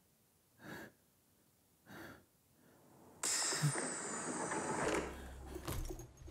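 Two short, soft breaths about a second apart, then from about three seconds in a longer hissing noise as a door swings open.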